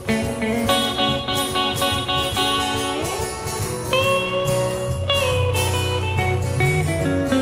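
Live blues played on guitar: an instrumental break with held notes and a note that slides up in pitch about three seconds in.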